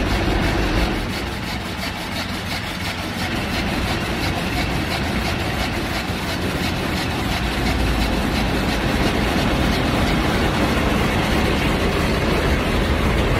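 Automatic car wash running, heard from inside the car: a steady rush of water spray and machinery noise against the body and windows. It dips slightly about a second in, then builds back up.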